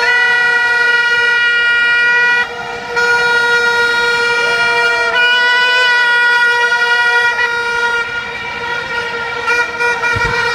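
Party horns blown in a crowd: one loud, steady blaring tone held almost without a break, with other horns sliding up and down in pitch over it. A few low thuds come near the end.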